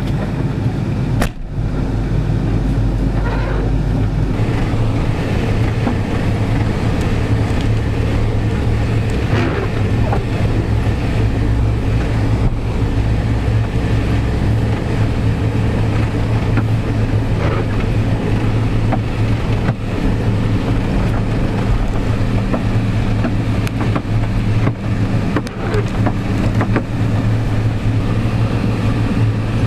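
Old Nissan Patrol 4x4 driving through snow, heard from inside the cab: a steady low engine drone with scattered knocks and rattles from the body over the rough track. A door slams shut about a second in.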